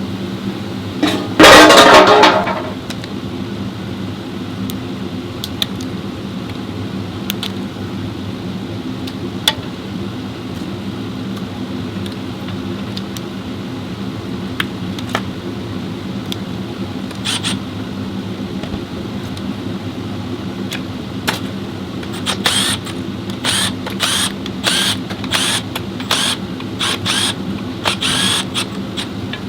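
Steady mechanical hum in a workshop. About a second in, a loud burst lasting about a second and a half. Near the end, a quick run of short, sharp tool clatters.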